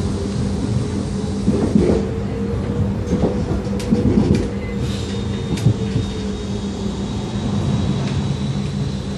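Running noise inside a Modertrans Moderus Gamma low-floor tram on the move: a steady low drone with a drive whine that rises and then falls, a few knocks and rattles from the wheels and body, and a thin high whine from about halfway through.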